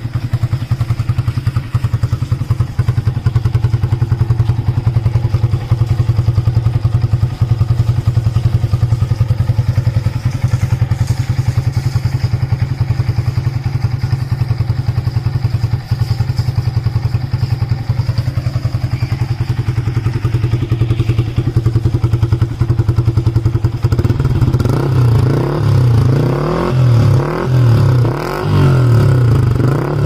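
Yamaha MT-15's single-cylinder engine through an aftermarket slip-on exhaust, idling steadily with a fast, even pulse. About 24 seconds in it is revved in several quick throttle blips.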